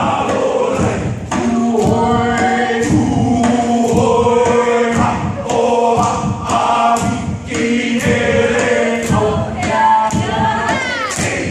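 A group of dancers chanting and singing together in a haka, with a long held low note under the voices and regular thumps from the dancers. Near the end there is a short gliding shout.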